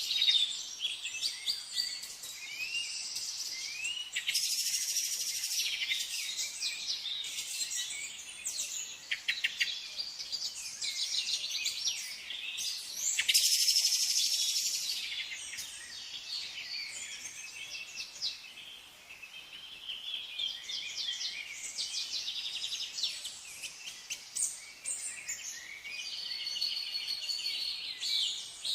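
Several songbirds singing and chirping at once, a dense chorus of rapid trills, repeated notes and short whistled glides, swelling louder twice, about four seconds in and again around thirteen seconds.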